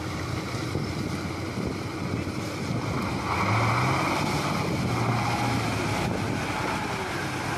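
Ural 6x6 army truck's engine running under load as it wades through deep water, with water churning and splashing around it and wind on the microphone. A little over three seconds in, the engine note rises and gets louder as white water surges up at the front.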